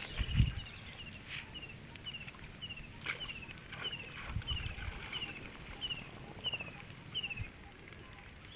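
A bird calling a steady series of short, falling whistled notes, about two a second, stopping near the end. Low thuds come about half a second in, the loudest moment, and again around the middle.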